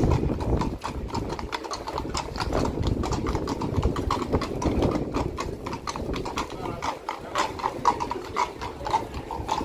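Horse hooves clip-clopping on a hard street, a quick irregular run of hoof strikes of more than one horse, over a low rumble of traffic.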